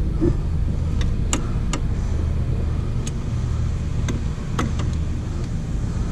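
Scattered light metallic clicks and taps, about half a dozen, from bolts being started by hand in a cramped engine bay, over a steady low hum.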